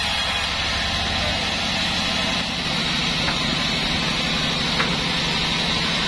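Band sawmill running steadily, its drive and blade humming as the blade cuts through wadang wood.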